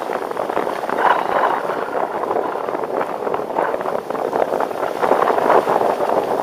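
Head alpine skis scraping and hissing over hard-packed groomed snow during a downhill run. The noise rises and falls in swells every second or two.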